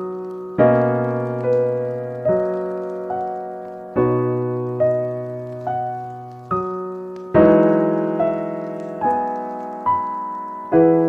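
Slow, gentle solo piano music: soft notes and chords struck about every second at an even pace, each left to ring and fade before the next.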